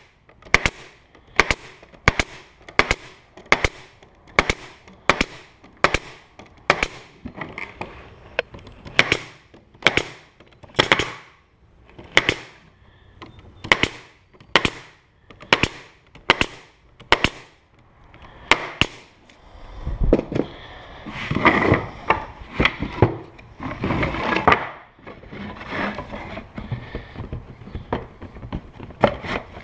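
A staple gun firing staples into wooden beehive frame parts, a sharp shot roughly every half second or so in a steady run. About two-thirds of the way through the shots give way to irregular knocking and handling of the wood.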